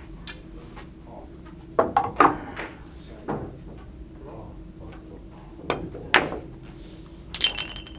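Billiard balls and cue clicking during play on a carom table: sharp knocks about two seconds in, another a second later, a pair near six seconds, and a quick rattle of clicks near the end.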